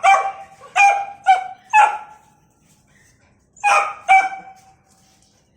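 Beagle puppy barking: four quick, high barks in the first two seconds, then two more about four seconds in.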